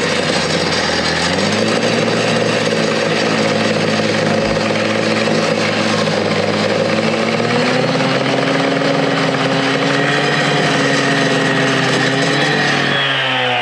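Petrol disc cutter (cut-off saw) running at high revs as it cuts through a concrete panel, a steady engine note that climbs about a second and a half in and drops as the throttle is eased off near the end.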